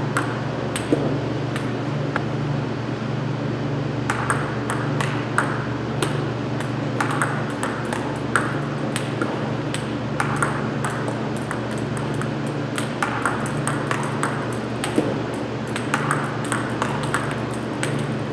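Table tennis balls being struck and bouncing: an irregular run of sharp clicks, several a second in clusters, over a steady low hum.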